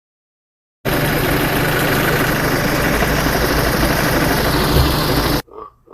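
A steady, even noise with a low hum starts about a second in and cuts off suddenly after about four and a half seconds. Just before the end, a toy pig starts oinking in short, evenly spaced grunts.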